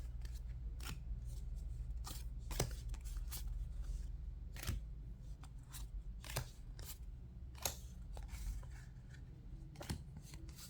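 Trading cards being handled and sorted into piles: irregular crisp clicks and snaps as cards are flicked through and set down.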